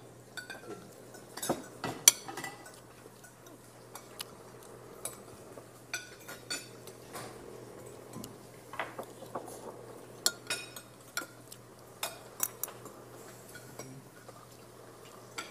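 Metal spoons and forks clinking against ceramic bowls as people eat: irregular sharp clinks scattered throughout, the loudest about two seconds in.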